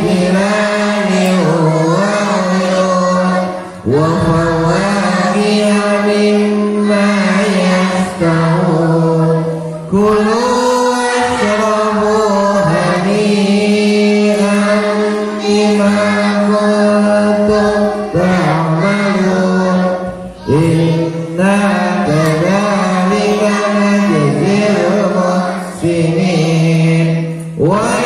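A group of voices chanting Quran verses in unison to a fixed melody, typical of the Ummi method. The lines are long and held, with brief breath pauses between verses.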